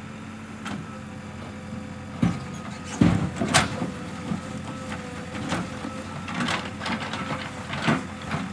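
JCB backhoe loader's diesel engine running steadily while it digs a trench, with scattered knocks and clanks throughout, the loudest a few seconds in.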